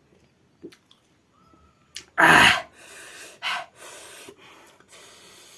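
A person's sudden loud breath burst about two seconds in, then repeated hissing breaths through the mouth. This is the kind of breathing that comes from a mouth burning from chili heat.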